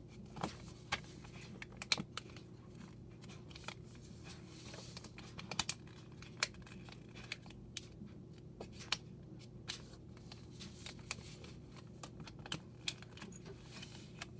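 A sheet of paper being folded by hand into a cootie catcher, its corners folded into the middle and creased flat: irregular crinkles and sharp ticks of creasing and pressing against the tabletop.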